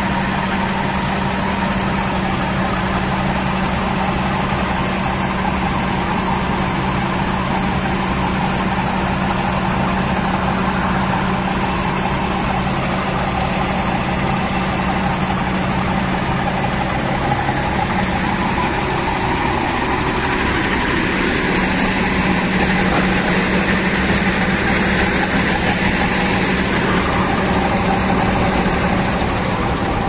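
Combine harvester running while parked, its engine and threshing works going steadily with a low hum, as straw is thrown out of the open rear hood. The sound gets louder and more hissing about two-thirds of the way in.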